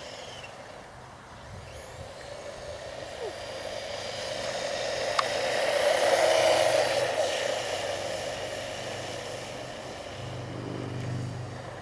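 Battery-powered RC monster truck running fast on asphalt, its motor whine and tyre noise growing louder as it passes close about six seconds in, then fading away. A single sharp click a little before the peak.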